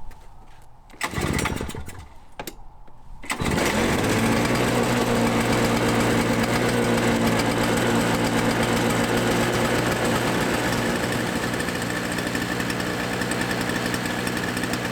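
A small gasoline engine being pull-started: a pull about a second in, and it catches a little after three seconds in, then runs steadily. It started unusually easily for this machine.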